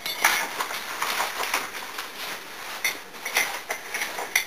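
Spoon scraping and clinking against a cup as flour is spooned in: a scratchy scrape over the first two seconds, then a string of short, ringing clinks.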